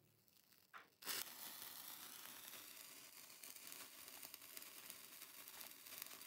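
Small restored lighter struck: a light click, then a sharper strike about a second in, followed by its flame burning with a faint, steady hiss and crackle.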